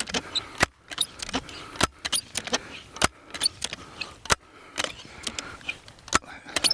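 Benjamin Sheridan Blue Streak .20 calibre multi-pump air rifle being pumped up: its pump lever is worked about once every second and a bit, and each stroke gives a sharp metallic clack, with lighter clicks in between.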